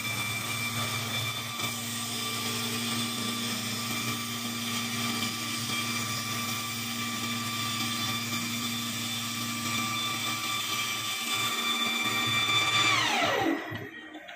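CNC wood lathe running, a steady high motor whine over wood-cutting noise as the spindle blank is turned and milled. About 13 seconds in, the whine falls quickly in pitch as the machine spins down and stops.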